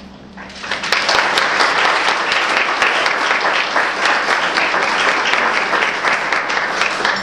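Audience applauding: a roomful of people clapping, starting about half a second in and holding steady.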